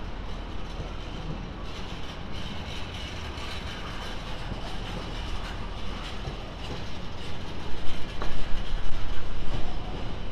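Freight train wagons rolling past on the rails, with a steady rumble and hiss and a louder run of irregular knocks from about three-quarters of the way in. The wheel noise is what the trainspotter takes for a flat wheel.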